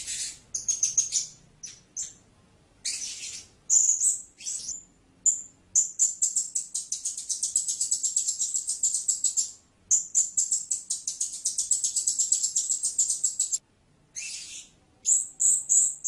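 Blue-crowned hanging parrot calling: very high, thin chirps, then two long, fast twittering trills of a few seconds each, then a quick run of separate chirps near the end.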